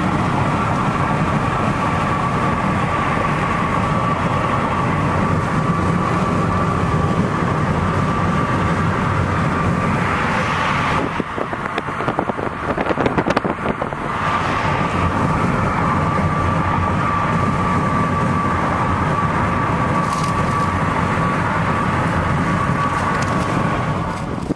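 Car driving at highway speed, heard from inside the cabin: a steady rush of road and tyre noise with a thin steady whine. About eleven seconds in, the sound dips and turns rough and choppy for about three seconds before the steady rush returns.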